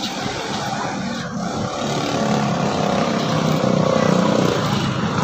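A motor vehicle's engine running, growing gradually louder to about four seconds in.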